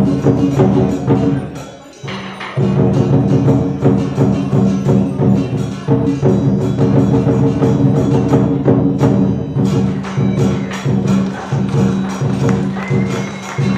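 Chinese lion dance percussion: drum, cymbals and gong struck in a fast, dense rhythm, with a short break about two seconds in before the playing picks up again.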